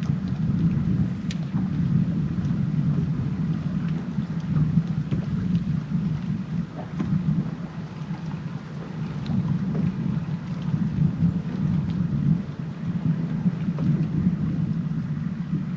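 Wind buffeting the microphone, heavily processed by wind-noise reduction, which leaves a steady, surging low rumble.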